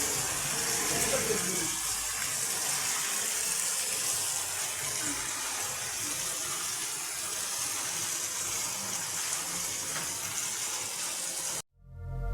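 Steady hiss of rain falling, which cuts off abruptly near the end.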